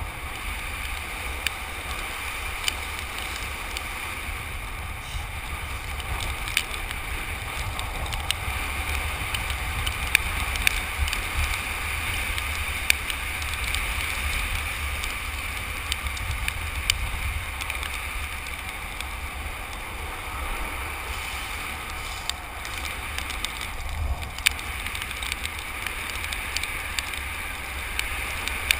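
Skateboard wheels rolling fast down rough asphalt, with wind noise on the microphone: a steady low rumble and hiss, broken by scattered sharp clicks.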